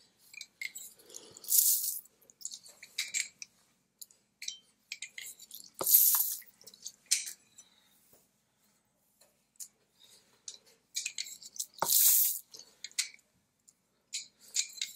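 Lime juice squirting and dripping into a volcanic-stone molcajete as limes are squeezed: three short, loud spurts of spraying juice a few seconds apart, with scattered drips and small clicks between them.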